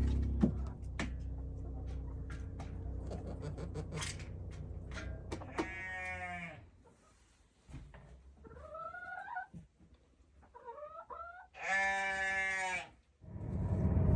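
Sheep bleating: one strong bleat about six seconds in, then higher, wavering bleats, and another strong bleat near the end. Before the bleats there is a low steady rumble with scattered clicks.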